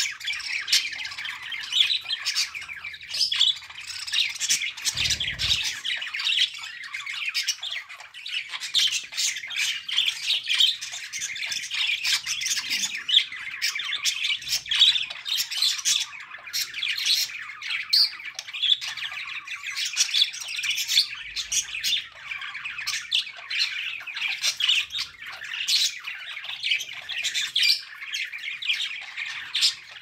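A flock of budgerigars chattering and chirping continuously, many voices overlapping.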